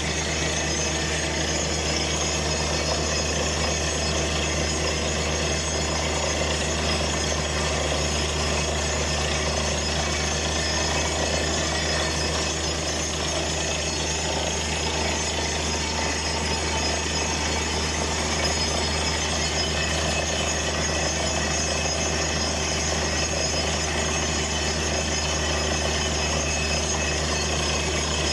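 Truck-mounted borehole drilling rig running steadily while drilling, its engine giving a low, even drone, with water and cuttings blown out of the borehole around the drill pipe.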